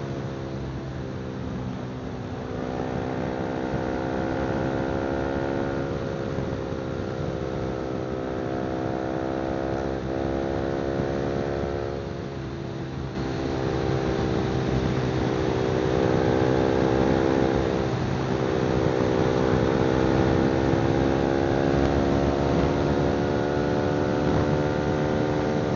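Honda CBR300R's single-cylinder engine through an aftermarket exhaust while riding, its note slowly rising and falling with the throttle. The note drops briefly about twelve seconds in and again around eighteen seconds, then picks back up.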